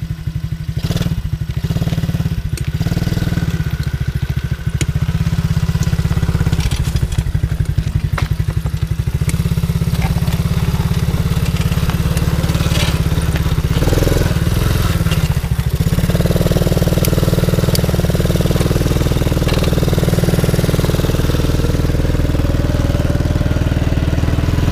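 Small youth ATV engine running steadily while riding along a paved road; about two-thirds of the way through, the engine note rises and gets a little louder as it picks up speed.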